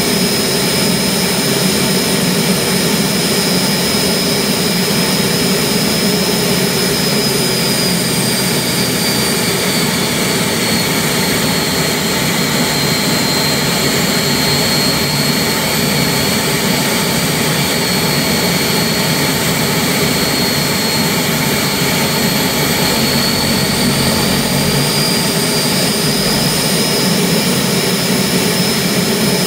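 Turbomeca gas turbine engine running on a ground-test stand: a steady jet roar with a high whine. The whine dips slightly in pitch about ten seconds in and climbs back near the end as the engine speed sags and recovers.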